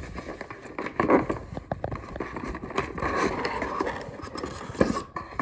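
Cardboard packaging scraping and rustling as a microphone boom arm is slid out of its box insert, with small clicks throughout and two sharper knocks, about a second in and near the end.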